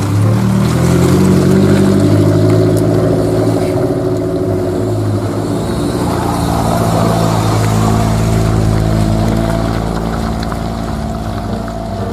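Suzuki Jimny engine running under way, its pitch shifting a few times as the throttle changes, with tyre and road noise.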